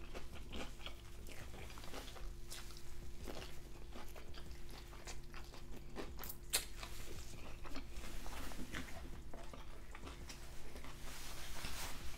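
A person chewing and biting a mouthful of pho (noodles, beef, tripe, basil and jalapeno) close to the microphone: irregular soft crunches and wet mouth clicks, over a faint steady hum.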